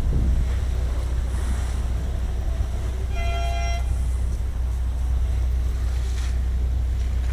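Wind buffeting the microphone over a steady low rumble by the sea, with a short horn toot lasting under a second about three seconds in.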